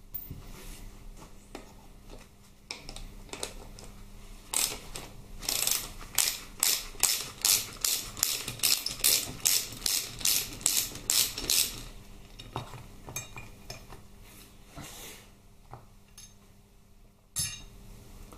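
Hand ratchet clicking on its back-strokes, in a regular rhythm of about two strokes a second, as a bolt on a Harley Twin Cam transmission trap door is wound out. A single clunk near the end.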